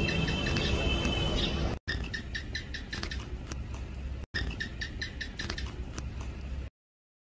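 House gecko (Hemidactylus) calling: a run of short, sharp chirps repeated about three to four times a second, cutting out shortly before the end.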